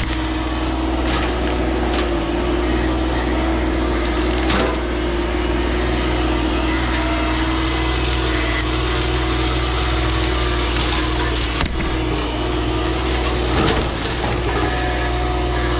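CAT 304 mini excavator's diesel engine running steadily at work while its brush-cutter mulching head grinds through wood and brush, with a few sharp cracks of splintering wood.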